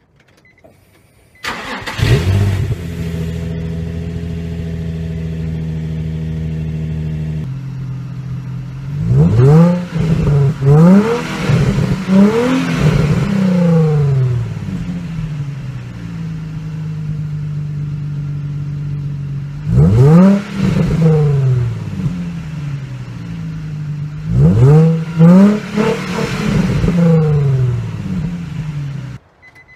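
2003 Nissan 350Z's 3.5-litre VQ35DE V6 on its stock exhaust: a cold start that catches about a second and a half in and holds a steady high fast idle, then, warmed up, a lower idle broken by several quick free revs about ten seconds in, again near twenty seconds and again around twenty-five seconds.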